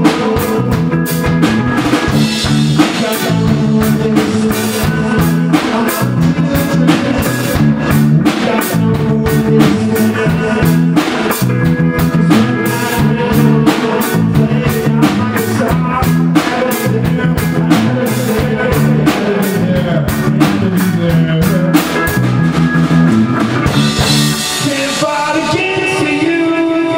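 A live band plays rock on electric guitars with a drum kit. About two and a half seconds before the end the drumming stops and a held chord rings on.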